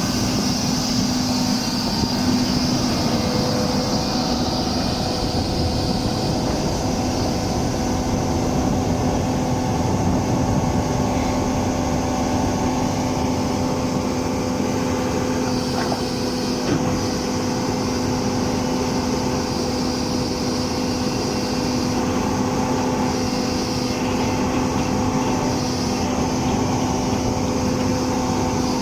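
Doosan 300LC-V crawler excavator's diesel engine running steadily, with a constant droning hum.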